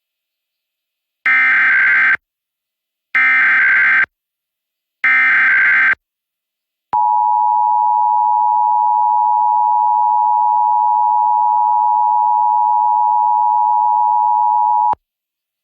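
Emergency Alert System SAME header: three bursts of warbling data tones, each about a second long and a second apart. These are followed, about 7 seconds in, by the EAS two-tone attention signal held steady for about eight seconds. Together they mark the start of a statewide required monthly test.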